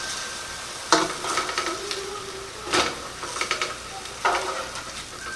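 Venison burgers sizzling in a frying pan, with a utensil knocking and scraping against the pan three times.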